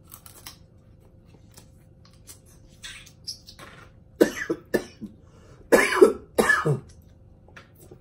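A person coughing in two short fits, two coughs a little past the middle and three more about a second and a half later, with faint small clicks of eating before them.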